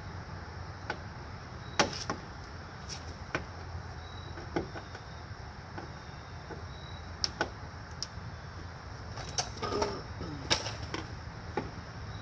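Scattered sharp clicks and taps, about a dozen, loudest near two seconds in and again near ten seconds in: a hand screwdriver turning the screws that hold a license plate to a front plate bracket, with the plate and screws knocking against the bracket.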